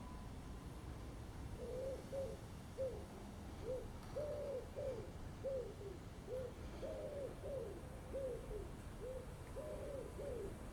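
A bird calling faintly: a run of short, low hooting notes, about two a second, starting about one and a half seconds in.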